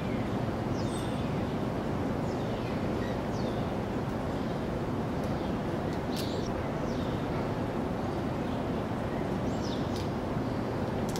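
Steady city background noise, a dense even hum with no breaks, with a few faint short high chirps that fall in pitch scattered through it.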